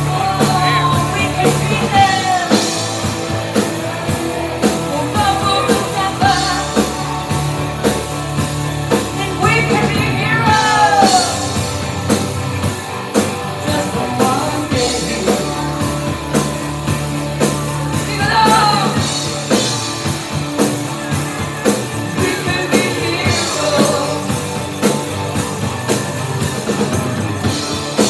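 Live rock band playing: a woman singing lead over electric guitar, bass guitar and drum kit, with a steady beat.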